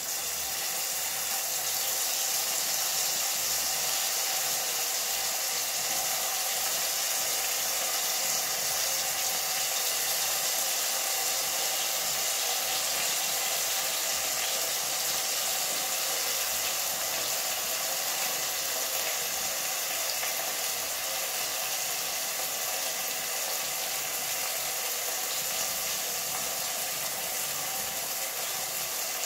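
Browned sliced onions sizzling steadily in hot oil in an aluminium pressure cooker.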